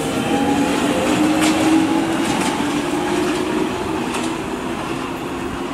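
London Underground 1996 Stock Jubilee line train running along the platform, its traction motors giving a steady whine of several tones, with a few sharp clicks of the wheels over rail joints. The sound eases off toward the end.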